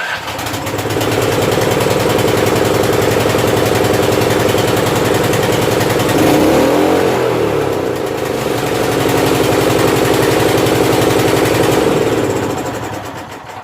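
Lifan petrol engine, with its centrifugal governor gear removed, starting and running at high revs. The revs dip briefly in the middle and come back up, and the sound dies away near the end.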